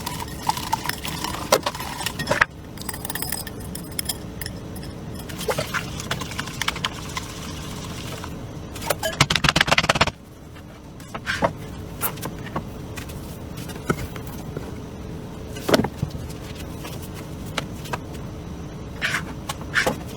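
Kitchen knife chopping potatoes on a cutting board: scattered single knocks and light scraping, with a quick run of chops about nine seconds in.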